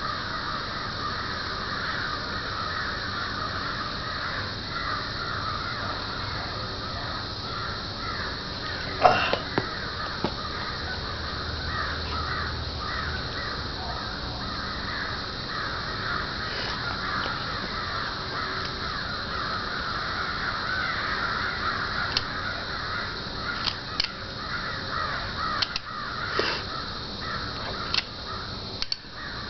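A flock of birds calling and cawing without pause, a busy chatter of harsh calls, over a steady high-pitched drone. A few sharp clicks come in the last third.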